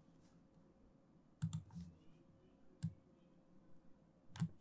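Faint, scattered clicks of a computer keyboard and mouse: a close pair about a second and a half in, a single click near three seconds, and another pair near the end.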